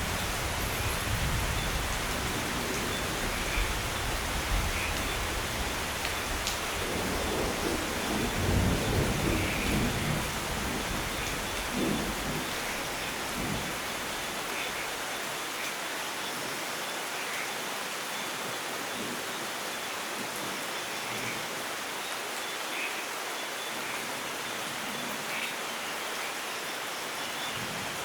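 Steady rain falling, with a low roll of distant thunder that swells about a third of the way in and fades out around halfway, leaving only the rain. A few faint bird chirps sound now and then.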